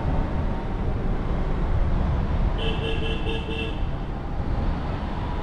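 Steady low rumble of a car driving. Just past halfway through, a vehicle horn sounds once for about a second, its tone fluttering.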